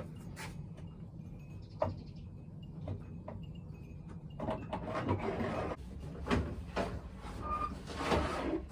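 Scattered knocks and clicks of greenhouse blinds and their fittings being handled and adjusted, turning to busier rustling and clattering about halfway through.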